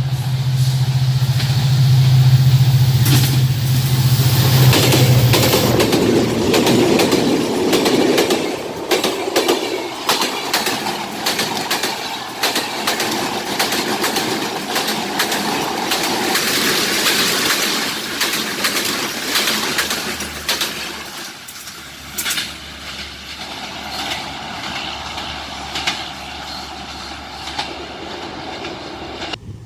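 Diesel-hauled passenger train passing: a steady low engine hum for the first few seconds, then the coaches' wheels clattering over rail joints, getting quieter over the last third.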